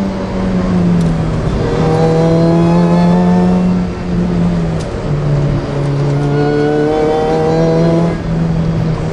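Supercharged car engine pulling hard, heard from inside the cabin: its pitch climbs, then falls back about three times as the driver shifts or lifts through the bends.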